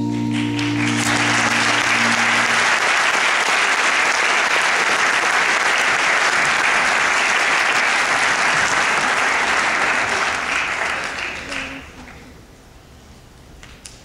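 The last held notes of the music ring out as an audience breaks into applause. The applause holds steady for about ten seconds, then dies away about twelve seconds in.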